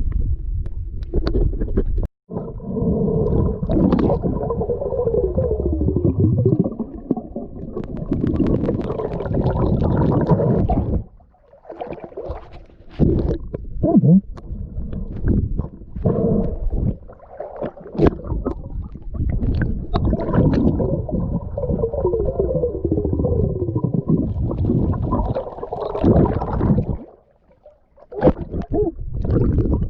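Muffled underwater sound from a camera in the water: water sloshing and gurgling around the housing, dull and bass-heavy, dropping away briefly twice.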